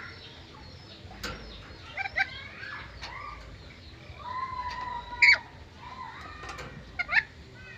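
Black-capped lory whistling and giving short sharp squawks, with a held whistle leading into the loudest squawk about five seconds in and another pair of squawks near the end; fainter bird chirps underneath.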